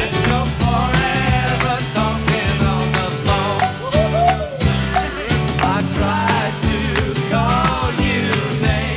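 A pop-rock song with drums keeping a steady beat, a bass line, and a sliding melody line over them.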